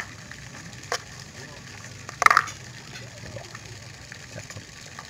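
A spoon and hands working a lump of soft bait paste in a plastic bowl: a light tap about a second in and a brief louder sound just past two seconds, over a steady background noise.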